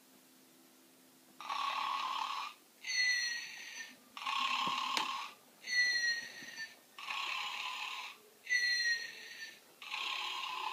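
Snoring, starting about a second and a half in: alternating in-breath and out-breath sounds, each about a second long, repeating steadily in a cycle of about three seconds.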